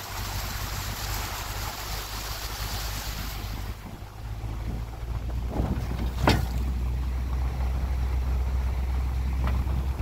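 A vehicle's tyres hissing and splashing through floodwater over a gravel road for about the first four seconds, then a steady low rumble of the vehicle rolling on wet gravel. A sharp knock comes about six seconds in.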